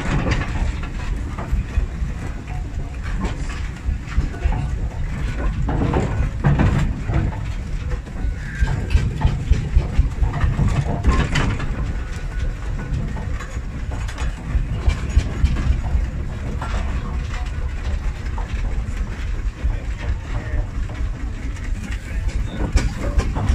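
Steam roller's steam engine running close by: a steady low rumble with irregular clicks and knocks from its moving parts.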